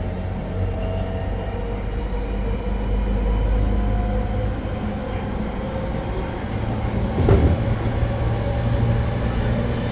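Inside a JR 209-series electric train car powered by MT68 traction motors under GTO-VVVF control, running at moderate speed: a steady rumble of wheels on rail with faint motor tones. A single thump about seven seconds in.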